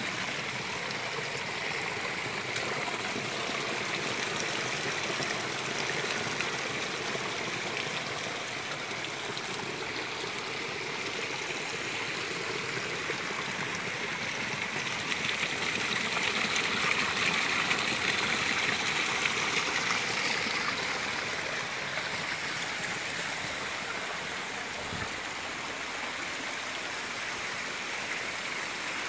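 Rainwater runoff cascading down a narrow rock channel: a steady rush of falling and splashing water, growing louder for several seconds around the middle.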